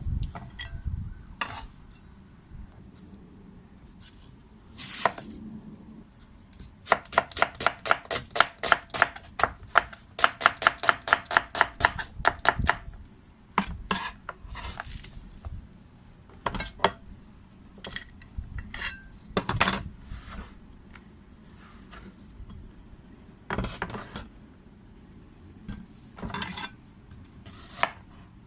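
Knife chopping garlic on a cutting board: scattered single cuts, then a run of quick, even chops, about five a second, for some six seconds in the middle.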